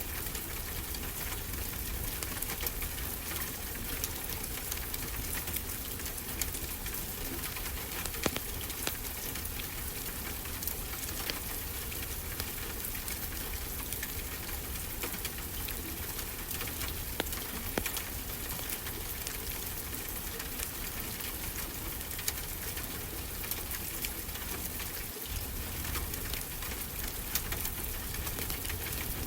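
Wood fire crackling, with frequent small pops and snaps, over a steady wash of ocean surf.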